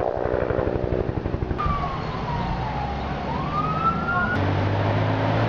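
Emergency vehicle siren wailing, its pitch sliding slowly down and then back up, over the low rumble of a running vehicle engine.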